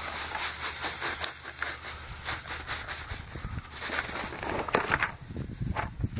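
Epsom salt crystals poured from a cardboard carton into a plastic bucket of granular fertilizer: a continuous grainy hiss of falling grains with many irregular little ticks.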